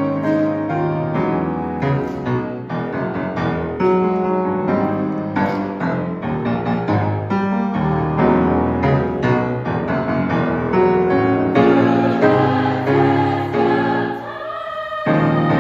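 Youth choir singing with grand piano accompaniment. Shortly before the end the sound briefly thins and drops in level, then the full choir and piano come back in.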